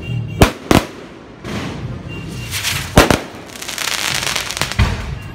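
Aerial fireworks going off: sharp bangs of shells bursting, two in quick succession about half a second in and another at about three seconds. Between them comes a dense crackling from crackle stars, strongest around three to four and a half seconds.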